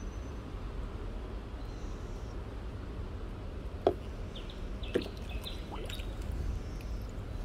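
Water dripping and lapping around a kayak, with two sharp knocks about a second apart midway and faint bird chirps.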